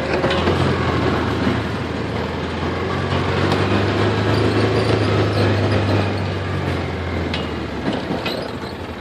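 Chainsaw engine running steadily, its low hum dropping away about eight seconds in.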